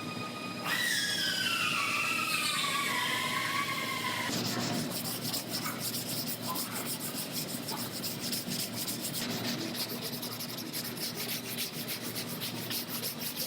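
Sanding body work on a car's panel. A tool's whine drops in pitch over the first few seconds, then gives way to a steady, rapid rasping.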